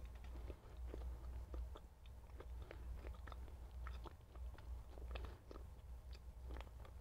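A person chewing a mouthful of fried plantain with the mouth closed, close to the microphone: a steady run of small, irregular mouth clicks over a steady low hum.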